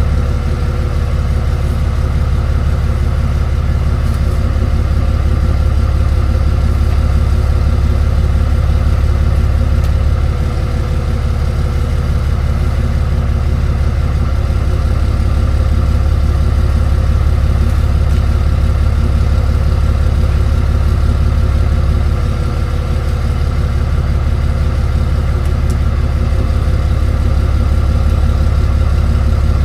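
Tow truck engine idling steadily, a deep even drone that dips slightly in level twice.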